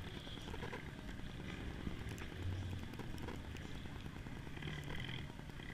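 Footsteps of someone walking across an asphalt parking lot, with wind rumble on the microphone and a faint low hum of engines.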